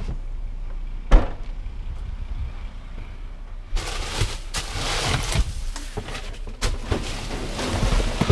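A sharp knock about a second in as a car's rear liftgate is swung open. From about halfway, plastic trash bags rustle and crinkle as a gloved hand grabs and pulls at them in a dumpster.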